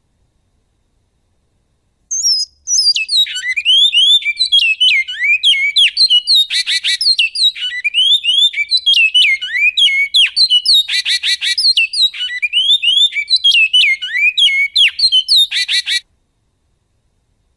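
Male great-billed seed-finch (bicudo) singing a long song in the 'goiano' style: fast, sliding whistled notes with three buzzy rattles mixed in. It starts about two seconds in and stops abruptly near the end.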